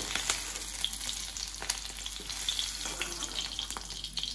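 Capsicum pieces sizzling in hot oil in a metal kadai, with a metal ladle scraping and clinking against the pan as they are scooped out.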